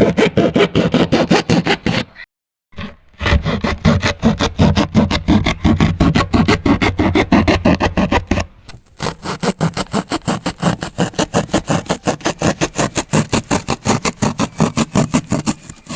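A knife sawing through corrugated cardboard box wall to cut out a door: quick rasping strokes, several a second, in three runs with two short pauses.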